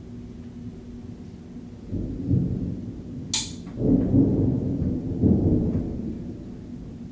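Thunder rumbling in three deep swells for about four seconds, with a brief sharp crack about a third of the way in. A steady low hum runs underneath.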